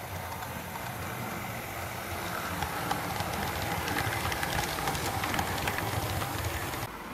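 Bachmann OO-gauge Class 37 model locomotives running past on track, the motor hum and the clicking of wheels over the rail joints growing louder as they come close. The sound cuts off suddenly near the end.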